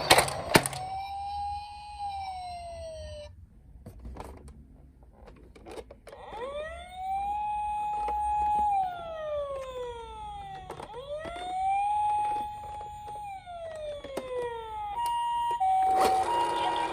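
Toy emergency-vehicle siren wailing: a tone that rises, holds and falls, cut off after about three seconds, then after a short gap with light clicks and rattles, two more full rise-and-fall wails. Near the end it switches to a two-tone hi-lo siren.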